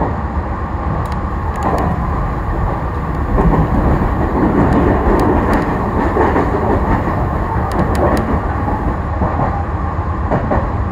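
Steady rumble and hum of a Meitetsu commuter train heard from inside the passenger car, with a few sharp clicks.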